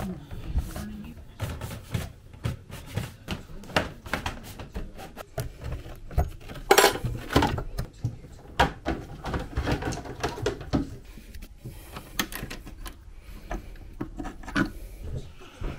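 Handling noise: irregular clicks, knocks and rustling as cables are pulled through plastic wall trunking and tools are picked over, with a louder rustle about seven seconds in.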